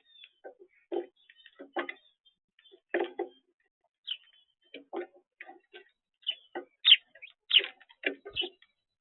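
Irregular light taps and clicks of birds pecking and moving about, with a few short high chirps in the second half.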